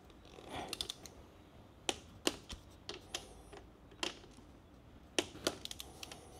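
Scattered sharp clicks and light knocks of tools and parts being handled, irregularly spaced, with a few close together near the end.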